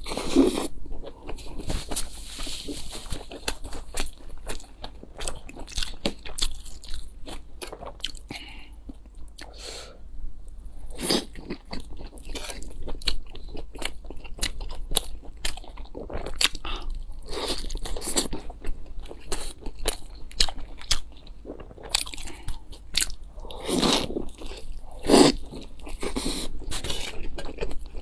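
Close-miked eating: a person biting into and chewing crunchy food, a dense run of wet crunches and clicks with louder bites every few seconds.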